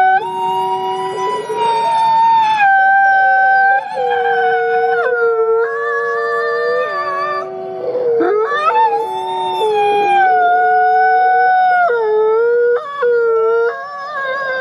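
Gray wolf howling while lying down, with other wolves' howls overlapping in a chorus. The long held notes shift in pitch and break off and restart every few seconds, around four, eight and twelve seconds in.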